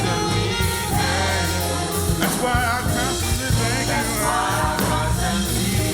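Gospel worship song with live band and singing: steady bass and keys under sung and held notes.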